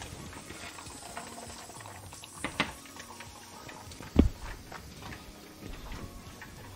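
A full pressure canner being shifted across the stovetop: small metallic clinks and scrapes, then one heavy thump about four seconds in as it is set down on the cool side of the range.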